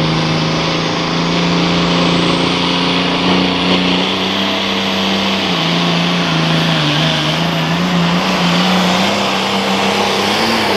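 International Pro Farm pulling tractor's turbocharged diesel running flat out under load while it pulls the sled. Its pitch holds steady, then dips and wavers a little over the second half, and a faint high whine climbs slowly over the first half.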